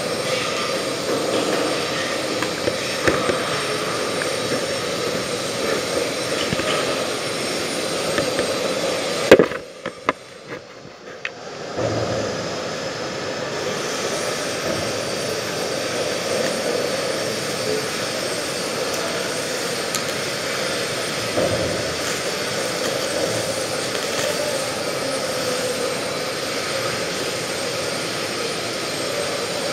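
Steady mechanical drone with a low hum, broken about nine seconds in by a sharp click and a drop of about two seconds before the drone resumes.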